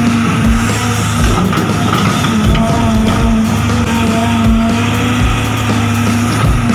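Background music with a steady beat, about two low thumps a second under held tones and a short melody.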